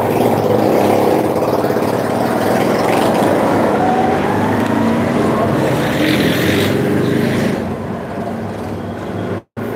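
A steady, loud mechanical drone like an engine or motor running, with a brief cut-out near the end.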